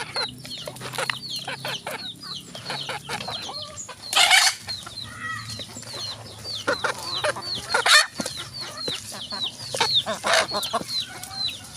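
A flock of chickens clucking and peeping, with short high falling calls several times a second and a few louder, harsher calls about four, eight and ten seconds in.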